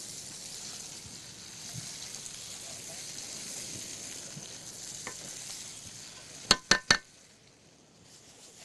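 Egyptian baladi sausage and sliced peppers sizzling as they fry in a pan and are stirred, then three sharp knocks close together about six and a half seconds in, after which the sizzle largely drops away.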